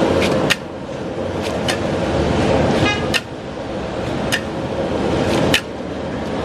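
Gas burner roaring under a wok, with a metal spatula clanking sharply against the wok several times while noodles are stir-fried. The roar swells and drops off suddenly about every two and a half seconds, and a short high toot sounds about three seconds in.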